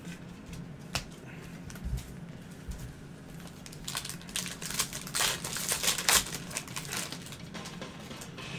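Panini football cards and packs being handled by hand. There are a few light clicks, then a flurry of crinkling, rustling and tapping from about four to six and a half seconds in, as a pack is pulled from the box and its cards come out.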